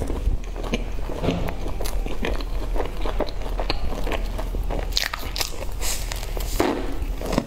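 Biting into and chewing crumb-topped, cream-filled pastry puffs: soft crunching of the crumbly topping and chewing, heard as many irregular short crackles.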